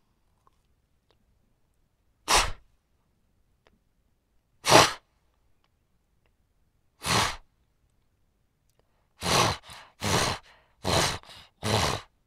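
Animal snorting hard through the nose: three single sharp snorts about two and a half seconds apart, then four snorts in quicker succession, most with a softer second puff after them.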